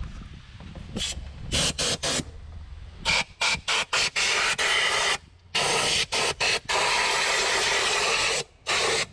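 Compressed-air blow gun on a shop air line blasting metal shavings out of an engine bay: a string of short bursts of hissing air, then a longer blast of about three seconds in the second half and one last short burst.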